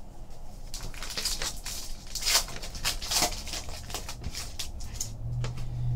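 Foil wrapper of a Panini Donruss basketball card pack crinkling and tearing as it is pulled open, with cards being set down on a stack.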